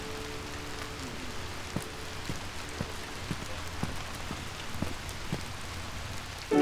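Rain falling steadily, with scattered louder drops ticking at irregular moments. A held music note fades out in the first second.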